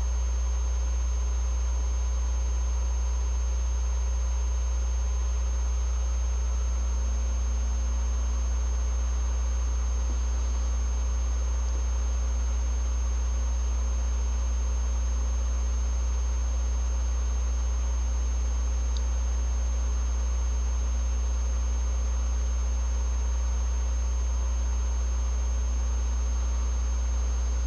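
Steady low electrical mains hum, with a faint high-pitched whine above it.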